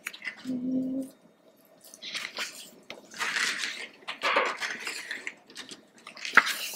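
Photobook pages being turned and pressed flat by hand: several paper swishes and rustles, a short low hum about half a second in, and a sharp tap near the end.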